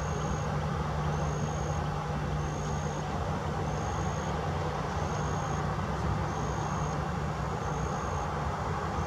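Boeing 737-800's CFM56 jet engines idling at a distance as the airliner sits on the runway: a steady low hum under a broad rushing noise. A short, high-pitched tone repeats about once a second over it.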